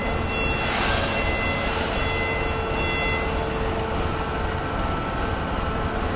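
Industrial parts-washing machine running: a steady mechanical drone with a few steady tones, broken by brief hissing surges about a second in, again near two seconds and near four seconds.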